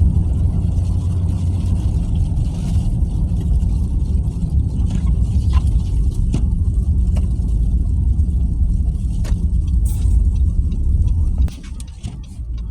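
Car driving on a snowy road heard from inside the cabin: a steady low rumble of engine and tyre noise, which drops off sharply near the end as the car eases off.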